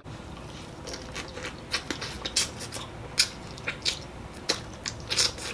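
Close-miked eating of a seafood boil: wet chewing and lip smacks, with irregular sharp clicks several times a second.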